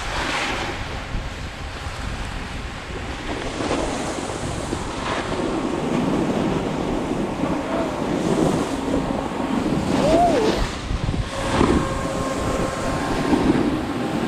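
Wind rushing over the microphone of a moving action camera, with the scrape of a rider sliding over packed snow. A faint steady hum from a snowmaking fan gun comes in near the end.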